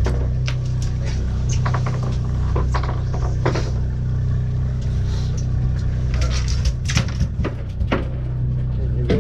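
Fishing boat's engine running with a steady low hum, with scattered knocks and clatter over it.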